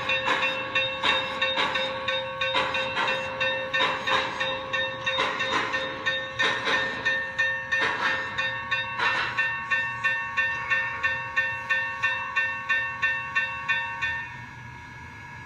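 MTH RailKing Imperial Union Pacific Big Boy 4-8-8-4 O-gauge model locomotive running with its Proto-Sound 3.0 steam sounds: a steady beat of chuffs from its on-board speaker. The chuffing stops about fourteen seconds in as the locomotive comes to a halt, leaving a quieter steady sound.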